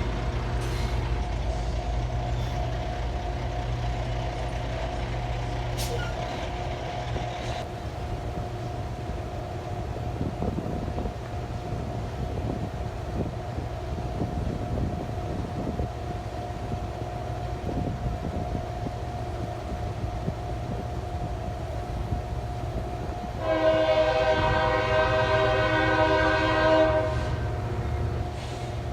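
CSX diesel locomotive's engine running with a steady low rumble, then a single horn blast of about three and a half seconds near the end.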